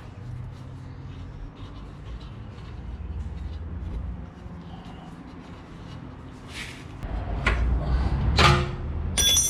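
Metal tools and car parts clanking and scraping during rear suspension work, over a low steady hum. The handling noises get louder in the second half, ending in a short metallic ring.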